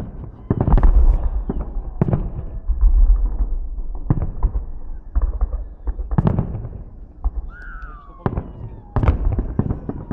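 Aerial fireworks salute: shells bursting one after another with deep booms and crackling, the biggest bangs about one, three, six and nine seconds in. A short falling whistle sounds about seven and a half seconds in.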